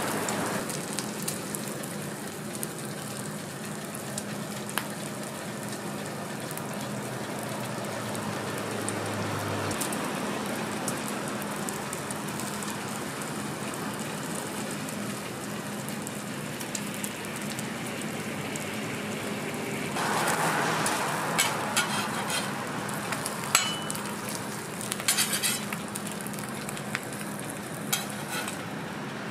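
Food sizzling steadily on a flat-top griddle. About two-thirds of the way in, the sizzling grows louder and sharp clicks of metal spatulas scraping and tapping on the griddle come through.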